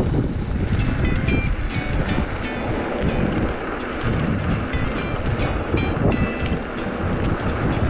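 Wind buffeting the microphone and tyre rumble from a mountain bike rolling downhill on a rough paved lane, with a faint tune of short high notes playing underneath.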